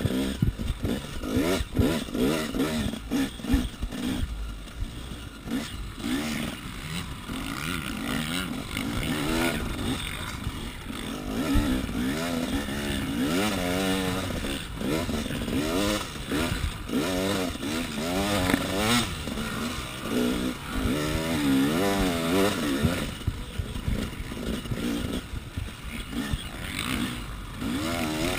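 KTM 300 EXC's single-cylinder two-stroke engine, heard from the rider's chest, revving up and falling back again and again as the bike is ridden hard around a motocross track. Short knocks and clatter come from the bike over the bumps.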